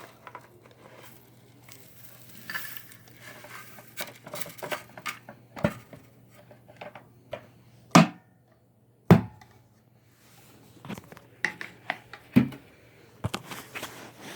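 Handling noises: scattered rustling and crinkling with short knocks, the two loudest about a second apart midway, over a faint steady low hum.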